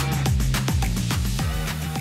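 Background music with a steady drum beat and a held bass line.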